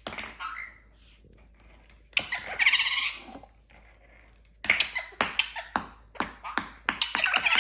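Indian ringneck parakeet giving one wavering, squealing call lasting about a second, about two seconds in. Later comes a run of sharp taps and clicks, about three a second, as ping-pong balls are knocked about.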